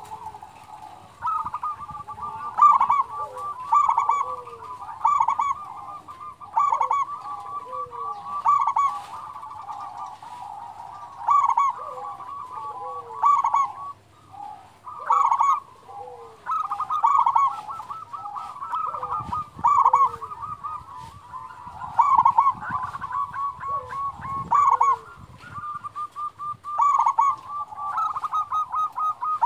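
Zebra dove (perkutut) cooing: short staccato phrases repeated every second or two, over a steady run of fainter calls.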